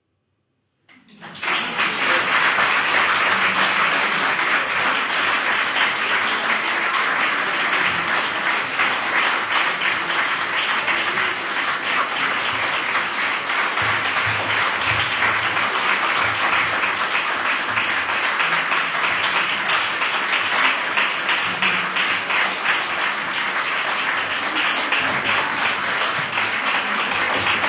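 Audience applauding, breaking out suddenly about a second in after a moment of silence, then holding steady.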